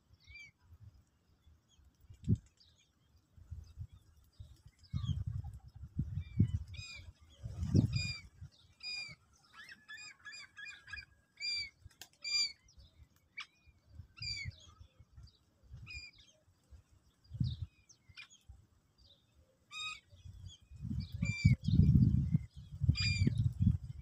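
Sparrows chirping over and over in short, curved notes, with bursts of low wing flutter from birds taking off and landing, loudest near the end.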